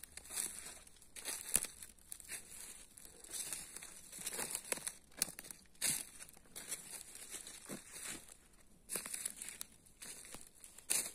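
Footsteps crunching and rustling through dry fallen leaves, pine needles and twigs on a forest floor, in irregular bursts.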